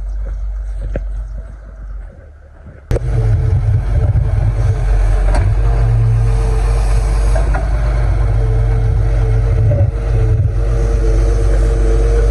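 Excavator's diesel engine running with a steady low rumble. About three seconds in, the sound switches abruptly to a louder, closer engine with a steady hum.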